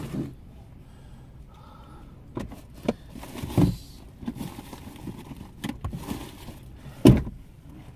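Handling noises inside a car's cabin: rustling of takeout bags and containers with a few knocks, and one louder thump near the end.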